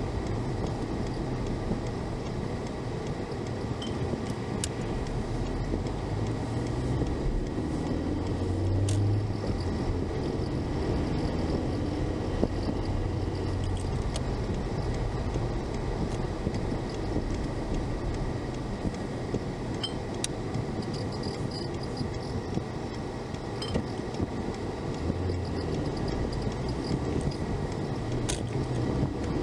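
Steady engine and tyre rumble inside a car's cabin while driving, picked up by the dashcam's own microphone. A few light clicks are scattered through.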